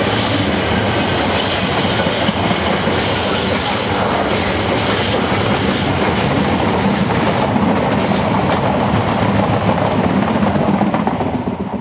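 Freight train of container flat wagons rolling past at speed, its wheels clattering steadily over the rail joints; the sound fades out near the end.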